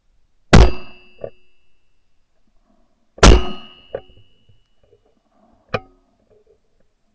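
Two shotgun shots about two and a half seconds apart at a wood pigeon in flight, each followed by a fainter knock. A short, sharp click near the end.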